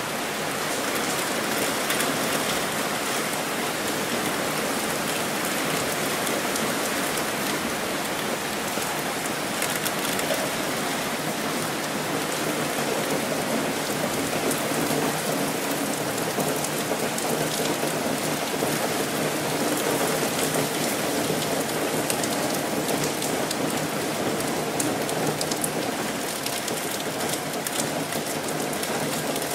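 Steady rain falling: an even rush of noise dotted with many small drop ticks, holding at one level.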